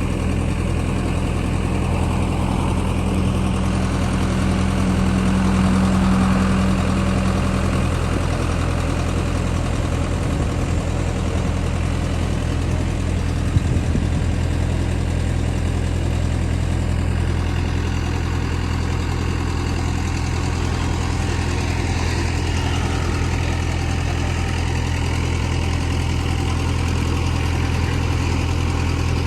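Mini excavator engine running steadily. A higher hum swells for the first several seconds and then fades, and there is one sharp knock about halfway through.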